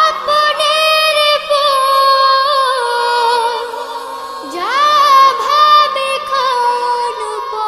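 Children's voices singing a wordless a cappella interlude in a Bengali song: long held notes, with each of two phrases sliding up into its first note, once at the start and again about halfway through.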